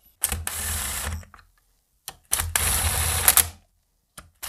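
Cordless Makita impact driver tightening bolts on a car differential: two bursts of rapid hammering clatter, each a little over a second long, with a short pause between.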